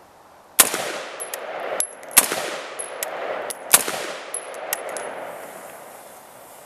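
Three gunshots about a second and a half apart, each followed by a long rolling echo, fired through a lightweight prototype flash suppressor/compensator. Light ticks sound between the shots.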